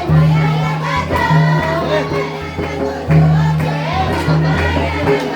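Adivasi dance music: several voices singing together over a deep bass line that moves in long held notes.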